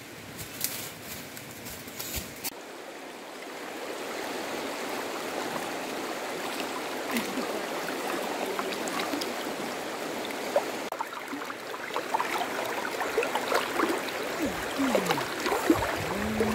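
Shallow river water running and babbling steadily around people wading, with small splashes as they feel along the bottom with their hands for fish. It opens with a few crackles of footsteps in dry leaf litter before the water comes in, about three seconds in.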